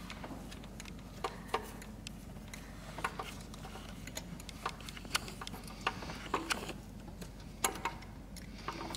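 Irregular light clicks and taps of hand tools working an intake manifold bolt, roughly one or two a second, over a low steady hum.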